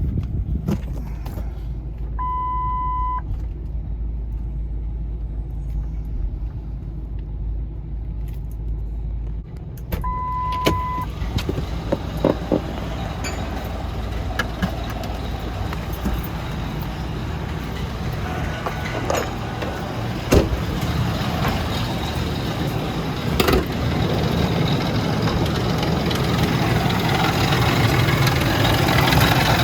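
Ford Expedition's 4.6-litre V8 engine running as the truck is driven, heard from inside the cabin. Two one-second warning-chime beeps sound, the first about two seconds in and the second about ten seconds in, with a few light clicks.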